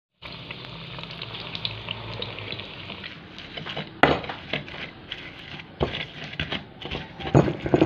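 Slices of tempeh frying in hot oil in a wok, a steady sizzle with crackles. About four seconds in this gives way to a pestle crushing chilies, garlic and salt in a clay mortar (cobek), with irregular knocks and grinding, louder near the end.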